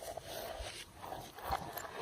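Slime being squished and mixed by hand, giving irregular sticky squelches with small crackling clicks.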